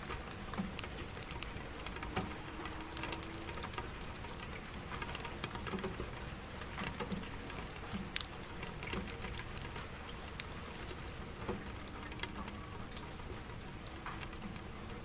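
Steady rain, with individual drops pattering irregularly on a hard surface over an even hiss.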